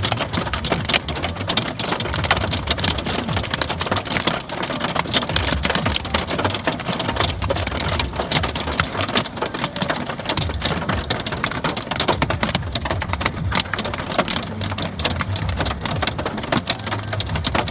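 Hailstones hitting a vehicle on the highway: a dense, continuous clatter of many small sharp impacts over a steady low rumble.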